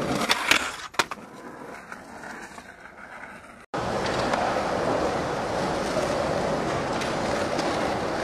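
Skateboard on concrete: two sharp board snaps about half a second and a second in, then after a short break a steady din of wheels rolling and a crowd.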